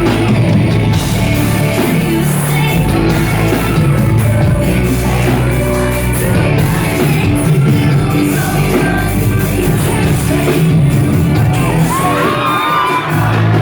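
Live band music playing loudly in a concert hall, with the crowd singing and shouting along, and whoops near the end.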